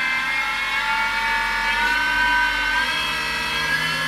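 Mini milling machine running without cutting, its 1 HP servo motor and toothed belt drive whining in several tones that rise slowly as the spindle is sped up. The heavy R8 cutter is out of balance and goes rough at spots in the speed range.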